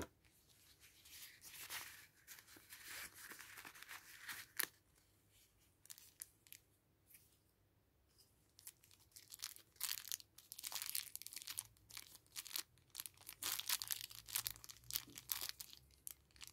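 Small clear plastic packaging bags crinkling and rustling as they are handled, in scattered bursts with a quieter stretch around the middle.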